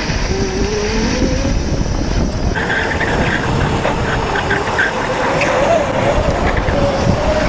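Electric drift go-kart running at speed, its motor whine gliding up and down, over a steady rush of wind and road noise. After a cut about two and a half seconds in, the tyres squeal in short chirps as the karts slide.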